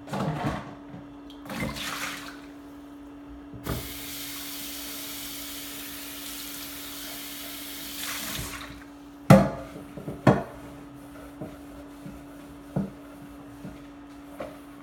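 Kitchen faucet running into the sink for about five seconds, then shut off. Dishes clatter and knock against each other and the sink, with two sharp knocks just after the water stops and a few lighter clinks later. A steady low hum sits under it all.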